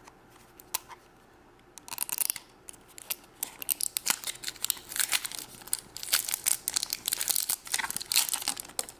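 A plastic toy wrapper being torn open and crinkled by hand, with dense, irregular crackling that starts about two seconds in and keeps going.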